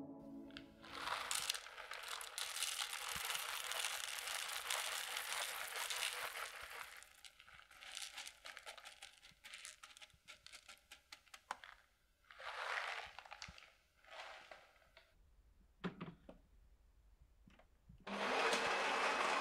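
Roasted coffee beans poured and rattled in a glass bowl: a long rushing rattle for about six seconds, then scattered clicks and two short rushes. Near the end a louder steady whirring noise starts.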